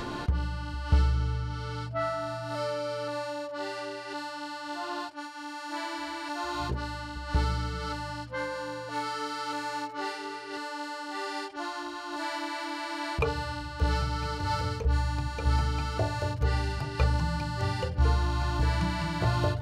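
Instrumental background music: an accordion playing a melody over a held drone note, with a low bass part that drops out and comes back in strongly about thirteen seconds in.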